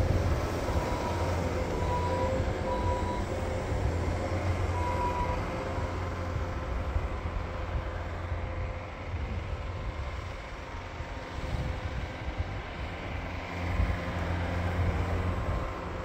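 Bobcat skid-steer loader's engine running as the machine drives away across an icy driveway; it fades through the middle and picks up again near the end. A few short faint whining tones sound in the first few seconds.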